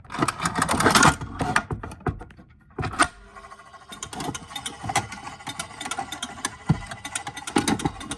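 Gamewell coded fire alarm pull station being pulled: a loud clatter of the handle and mechanism in the first second, then from about three seconds in its spring-driven code mechanism running with a steady mechanical whir and fast ticking.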